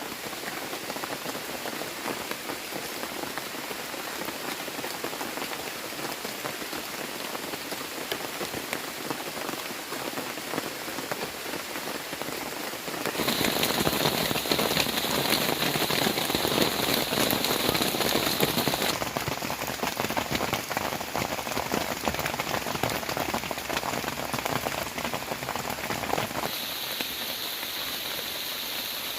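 Heavy rain falling, a dense, steady hiss of drops. It jumps abruptly louder about halfway through, then changes character suddenly twice more.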